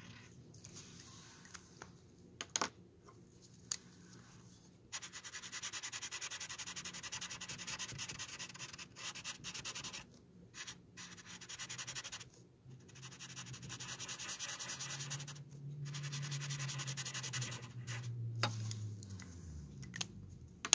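Felt-tip marker scribbling on a wooden spoon, coloring in with quick back-and-forth strokes. The strokes come in long stretches with short pauses, starting about five seconds in. Before that there are a couple of sharp clicks.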